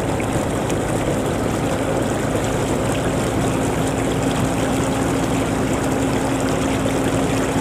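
A small engine running steadily at an even speed, with a constant hum and no change in pitch.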